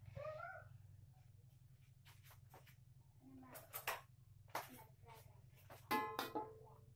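Metal spatula clanking and scraping in a wok about six seconds in, with a brief metallic ring, after a few lighter clicks. A steady low hum runs underneath, and a short rising voice-like sound comes right at the start.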